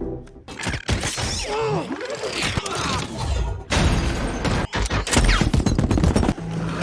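A run of edited-in crash sound effects instead of the music: repeated hard hits and thuds with crashing noise, and a wavering, sliding tone in the first half.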